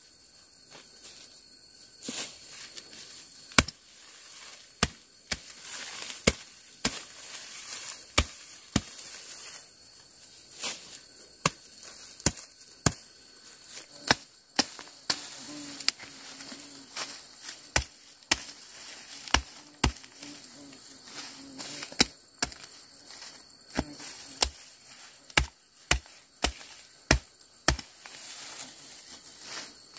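A hand sickle cutting through clumps of dry grass and grain stalks, a sharp snap with each stroke, irregularly about one or two a second and coming faster near the end.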